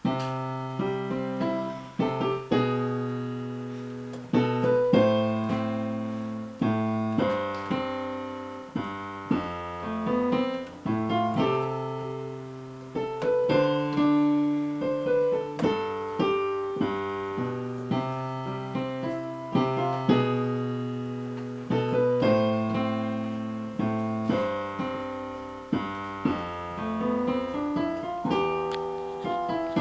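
Console digital piano played with both hands from sheet music, a melody over low bass notes at an even pace, each note struck and left to ring and fade. The playing begins right at the start after a moment of quiet.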